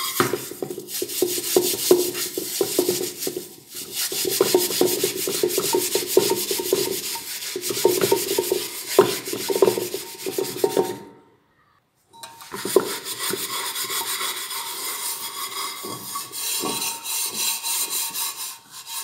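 A scrubber scouring the burnt-on black residue inside a pressure cooker, a continuous rapid rasping scrub. It stops dead for about a second near the middle, then resumes.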